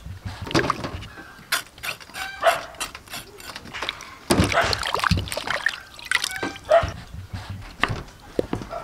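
A knife cutting through peeled green papaya on a wooden chopping board, and water sloshing and splashing as the papaya halves are washed in a basin of water about four seconds in.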